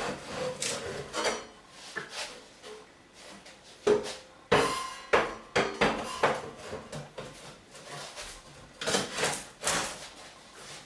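Metal parts of a Jøtul 602N wood stove being handled: irregular clanks and knocks, some with a short metallic ring, with scraping in between.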